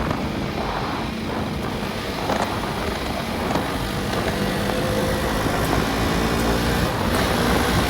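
KTM Duke motorcycle engine running steadily under way, mixed with wind and road noise on the rider's microphone.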